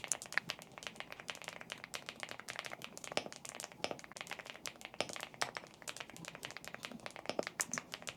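Typing on an Epomaker Galaxy 100, a full-size aluminium mechanical keyboard packed with foam, in a sound test. A quick, uneven run of key clacks and thocks goes on throughout, several keystrokes a second.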